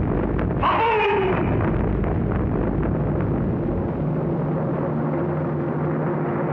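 Cartoon soundtrack effects: a continuous rumbling noise with a quick falling whistle-like slide about a second in, then a low steady hum joining in from about four seconds in.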